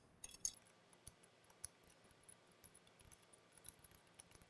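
Faint, scattered small metallic clicks and ticks of mounting bolts on a valve actuator's bracket being run down by hand with a small tool, a couple of sharper clicks in the first half-second.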